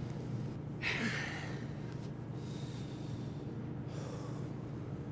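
Steady low mechanical hum, like boiler-room machinery, with three short breathy hissing bursts over it. The loudest burst comes about a second in, and two fainter ones follow later.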